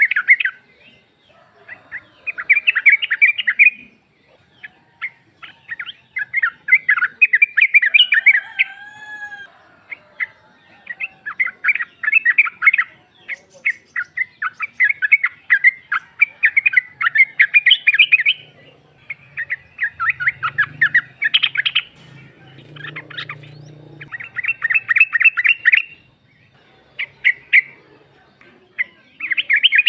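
Female yellow-vented bulbul (trucuk) calling with rapid chattering bursts of sharp notes, one to two seconds each, repeated with short pauses. This is the call used to draw a male into answering.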